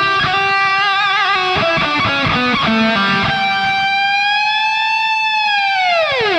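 Distorted solid-body electric guitar playing a soaring lead: a quick run of notes, then a long sustained note that bends slightly and then dives steeply in pitch near the end.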